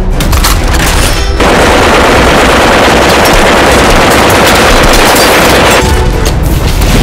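A long, continuous burst of M60 machine-gun fire sound effect over heavy music. It starts about a second and a half in and cuts off near the end.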